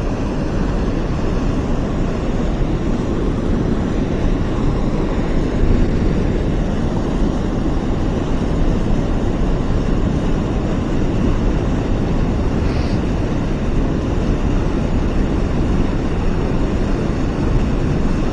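Steady rush of river water pouring over a dam into white water.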